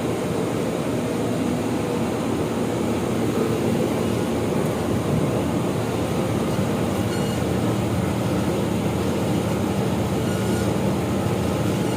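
Steady machine noise: a low hum under an even rushing sound, holding level throughout.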